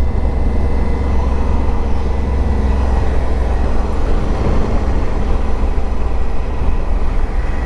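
Motorcycle ridden at a steady pace: a deep, steady wind rumble on the microphone with the engine running evenly underneath, no revving or gear changes.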